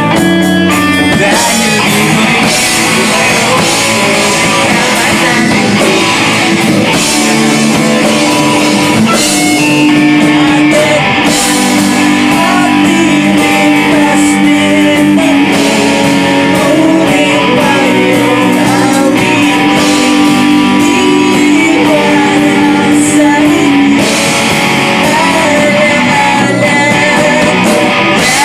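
Live rock band playing: electric guitars, bass guitar and drum kit, with a lead singer.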